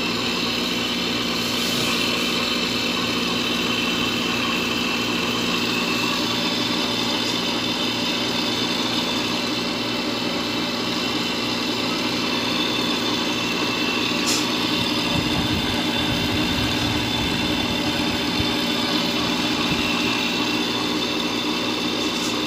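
Window-type air conditioner running with its new run capacitor fitted: compressor and fan humming steadily, now that the compressor starts properly. A single sharp click comes about 14 seconds in.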